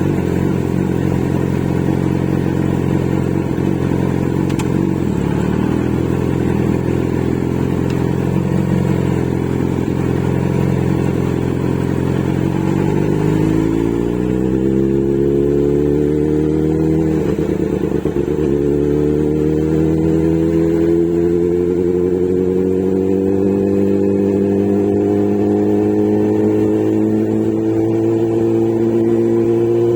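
Motorcycle engine under way, holding a steady note, then pulling up in pitch as it accelerates. It drops sharply a little past halfway, as with a gear change, then climbs slowly again.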